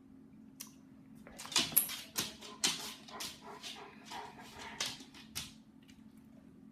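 A dog vocalizing in a quick run of about ten short, breathy sounds over some four seconds.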